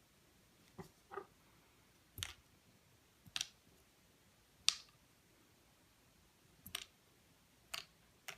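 Small, sharp clicks from a hook pick working the pin stack of an Abus 34/55 padlock, about eight in all at uneven intervals: the pins setting one by one as the six-pin lock is single-pin picked.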